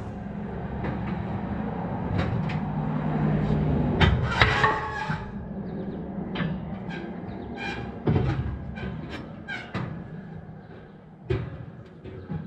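Metal knocks and clanks from the steel parts of a no-till grain drill being worked on, with a brief metallic squeal about four seconds in. A low steady hum runs under the first few seconds.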